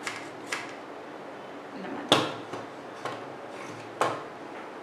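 Beetroot being sliced on a wooden mandoline slicer: two quick slicing strokes, then several sharp wooden knocks as the slicer is handled, the loudest about two seconds in and another near the end.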